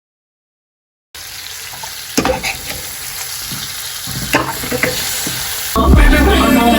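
Chicken frying in hot curry oil in a pot, sizzling steadily, with a few sharp knocks and scrapes of a spoon stirring it. The sizzle starts about a second in, after a moment of dead silence, and music comes in near the end.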